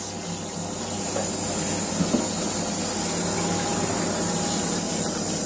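Running water spraying steadily, an even hiss, as it is adjusted for warmth to rinse a dog. A couple of light knocks about one and two seconds in.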